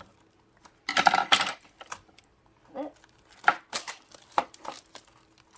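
Scissors and hands working at the stiff plastic packaging of a toy pack: irregular clicks, snaps and crinkles of hard plastic, loudest about a second in, as the tight plastic handle ring is cut and pried off.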